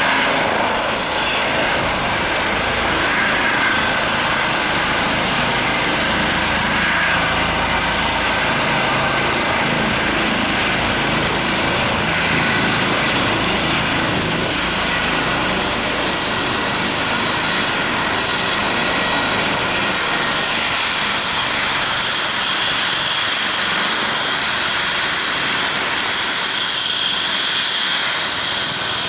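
Eurocopter EC135 rescue helicopter's twin turbine engines and rotor running steadily as it hovers and sets down on its landing pad. After touchdown the low rotor rumble thins out, leaving the steady turbine whine with the rotor still turning.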